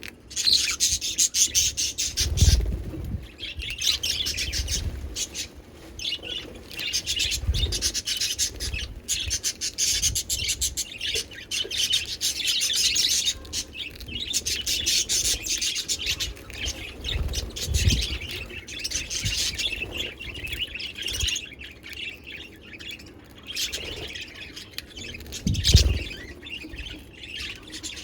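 Pet budgerigars chattering and chirping continuously, with a few dull low thumps now and then.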